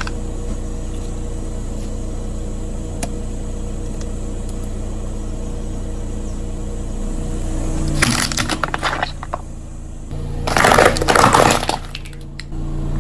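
A car engine idling with a steady hum. Then, about eight seconds in and again from about ten and a half seconds, loud crackling and cracking as the car's tyre rolls over brittle objects and crushes them.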